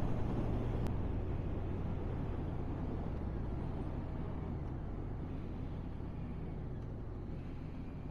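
Honda CBR1100XX Blackbird's inline-four engine running steadily under wind rush while riding, growing gradually quieter.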